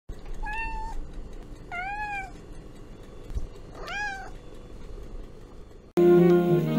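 A domestic cat meows three times, each meow short and about a second and a half apart; the second is arched in pitch and the third rises then falls. Near the end, plucked-string music starts suddenly and is louder than the meows.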